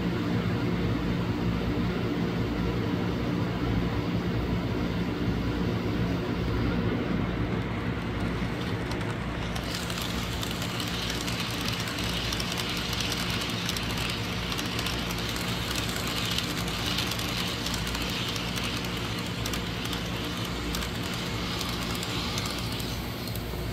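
Model trains running on a layout: a steady low hum, joined about ten seconds in by a hiss that lasts nearly to the end.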